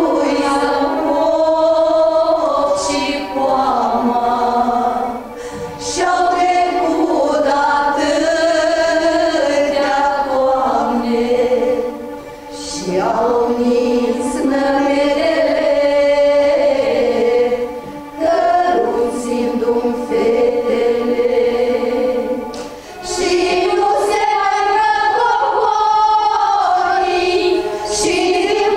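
A small choir, mostly women's voices, singing together in long held notes, the phrases broken by short pauses every five or six seconds.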